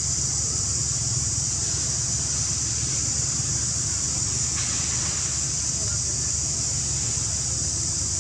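Steady hiss over a low hum, with a brief soft rustle a little before halfway.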